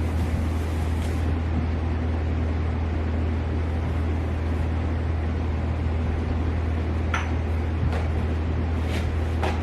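Steady low mechanical hum with an even rumble, joined by a few light clicks near the end.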